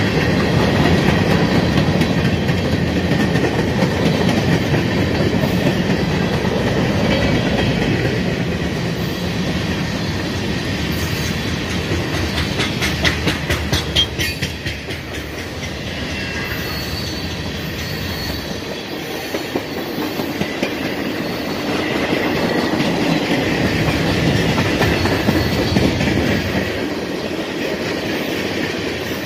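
Freight train cars (tank cars and covered hoppers) rolling past close by, wheels rumbling steadily on the rails. About halfway through comes a run of clicks as the wheels cross rail joints, and at times there is a faint high wheel squeal.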